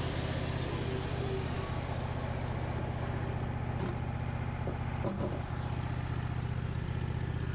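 Sawmill engine running steadily, with a hiss that fades out over the first few seconds.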